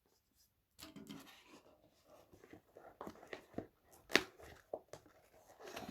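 Hands handling the contents of a mobile phone's retail box: soft clicks, taps and light rustling of packaging, with one sharper click about four seconds in.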